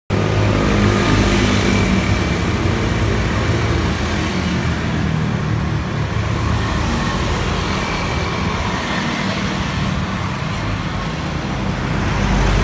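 Road traffic: motorcycles and motorcycle-sidecar tricycles running past on the street, a steady engine hum that grows louder near the end as one passes close.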